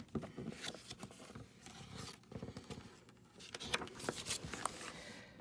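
Faint rustling and small scraping clicks of hands handling and turning the paper pages of a picture book.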